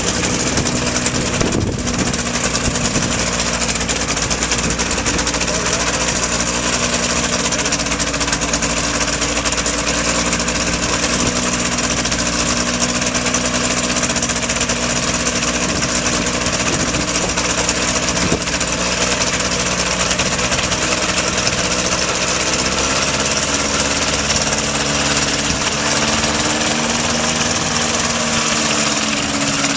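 Kitfox light aircraft's engine and propeller running steadily at low taxi power, with a slight wavering in pitch near the end.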